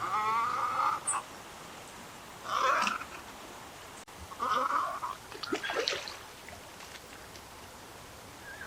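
Little egret giving gruff, hoarse calls: three harsh croaks about two seconds apart, followed by a short run of choppy, broken notes.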